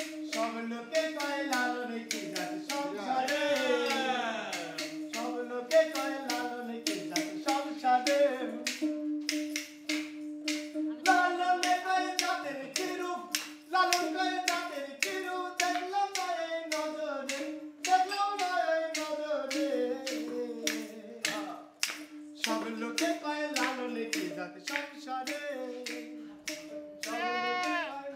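A man singing a Baul folk song over a steady drone note, with sharp wooden clacks of a khartal clapper keeping the beat.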